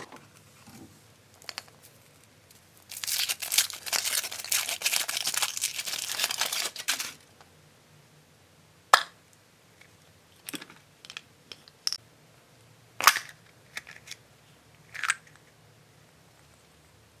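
Foil wrapper of a chocolate surprise egg crinkling and tearing as it is peeled off for about four seconds, followed by a handful of separate sharp clicks and snaps.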